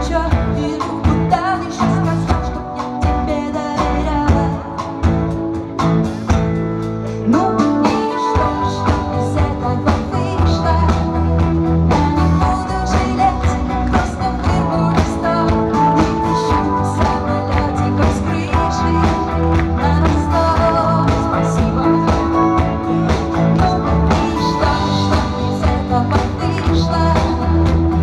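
Live pop-rock band playing on acoustic guitar, electric guitar, bass guitar and drums. The bass and drums come in fuller about eight seconds in.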